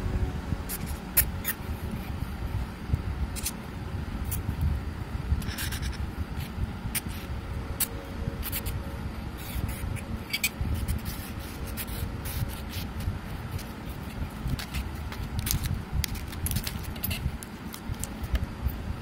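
Scattered small clicks and scrapes of metal carburetor parts being handled and set down, over a steady low rumble.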